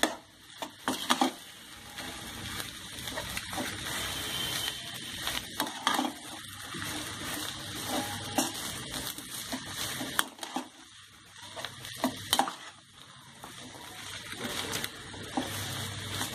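Mashed potato stuffing sizzling as it is stir-fried on a high gas flame in a kadhai, with a perforated metal spatula scraping and knocking against the pan at irregular moments.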